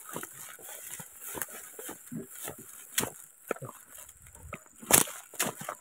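Footsteps rustling and crunching through grass and dry brush: irregular soft crackles with a few sharper snaps, the loudest about 3 s and 5 s in.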